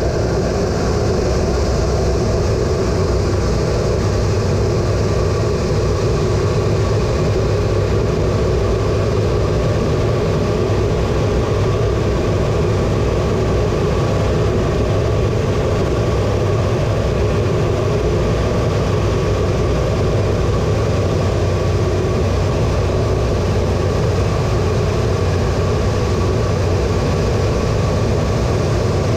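The A-10 Thunderbolt II's two General Electric TF34 turbofan engines running steadily, heard inside the cockpit as an unchanging drone with a faint steady whine.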